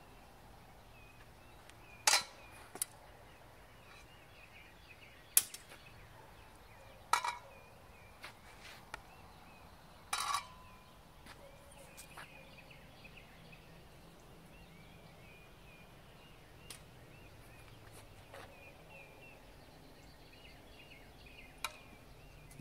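Steel swords striking each other and the round steel bucklers in a paired sword-and-buckler drill: a scattered series of sharp metallic clacks and clangs, some ringing briefly, bunched in the first half and sparse later. Birds chirp steadily behind.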